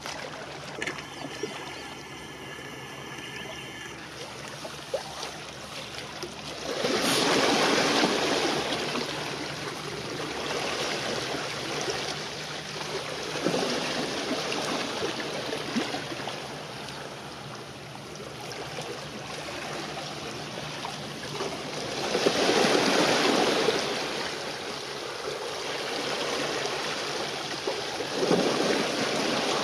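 Small sea waves washing and lapping at the shore close by, swelling loudly three times, over a faint steady low hum.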